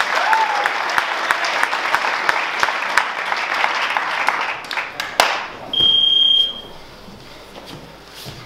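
An audience applauding, with dense hand claps, stopping about five seconds in. About a second later comes a single high electronic beep, under a second long.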